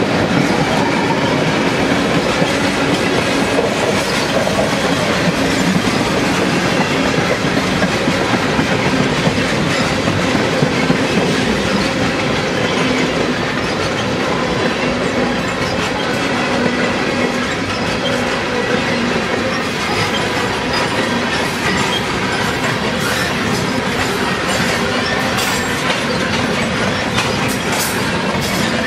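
Freight train of tank cars rolling past at steady speed: a continuous rumble of steel wheels on the rails with a rhythmic clickety-clack over the rail joints.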